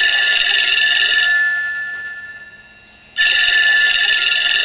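GadgetKing Wake-up Call retro telephone alarm clock going off with a telephone-bell ring. Two rings: each is held about a second and a half, then dies away, and the second starts about three seconds in.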